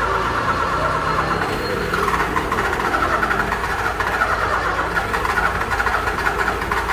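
Car starter solenoid clicking rapidly and continuously ('tec tec') as the key is held in the start position, the engine not cranking: the car won't start because of a starting-system fault.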